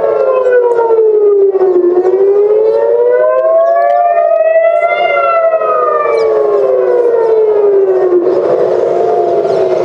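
Civil-defence air-raid sirens wailing, with at least two sirens out of step whose pitch slowly falls and rises over several seconds. This is a rocket alert warning of incoming ballistic missiles. A steady rushing noise joins near the end.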